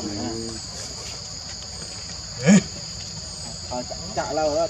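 Steady high-pitched insect drone throughout, with a few short wavering calls near the start and near the end. The loudest sound is one brief cry that rises and falls in pitch about two and a half seconds in.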